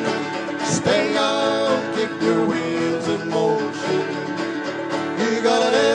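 Live folk band playing a song: banjo picked over strummed acoustic guitars.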